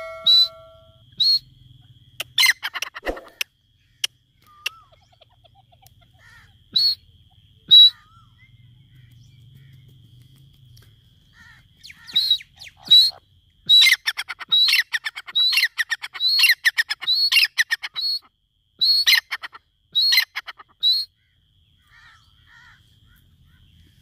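Grey francolin calling: single sharp notes here and there, then a long fast run of repeated notes about halfway through. A faint steady high tone sits underneath.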